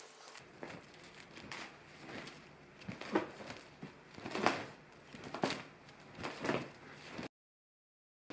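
Irregular rustling and crunching scuffs from cats at string play, a few louder strokes among them, until the sound cuts off suddenly about seven seconds in.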